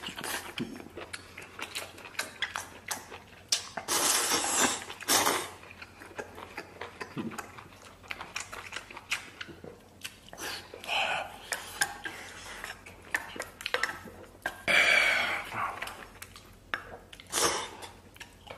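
Close-up eating sounds: a man slurping instant noodles and chewing with his mouth open, with several loud slurps spread through and wooden chopsticks clicking against a stainless steel bowl in between.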